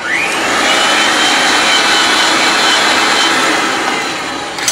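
Ridgid 300 pipe threader's motor starts suddenly, whines up to speed and runs steadily, spinning the pipe while the reamer cone scrapes out the inside of its cut end. It winds down over the last second, with a metallic click at the very end.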